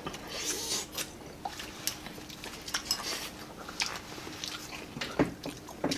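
Close-up eating sounds: wet chewing, sucking and lip-smacking on beef shank meat and bone marrow, as scattered short clicks, with a faint steady hum underneath.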